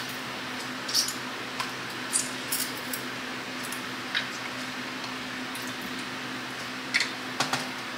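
Handheld metal citrus squeezer pressing a lemon half over a mug: scattered short clicks and squelches, loudest about a second in and again about seven seconds in, over a steady low hum.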